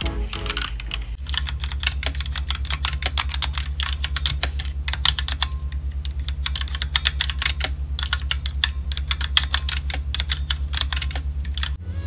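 Fast typing on a compact 60% Redragon Draconic K530 mechanical keyboard with red switches: a dense run of key clacks that starts about a second in and stops just before the end, over faint background music.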